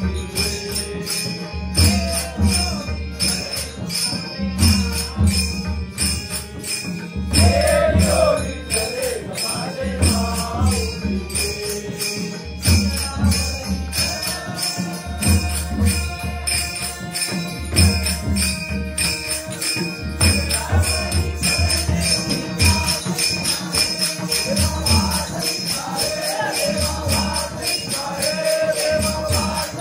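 Devotional bhajan music: singing voices over fast, continuous percussion strikes and a pulsing low drum beat.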